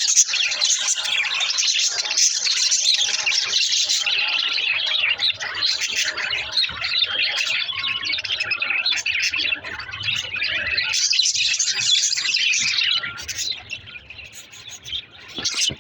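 Pet budgerigars chirping and chattering together in a dense run of high chirps, which thins out and gets quieter near the end.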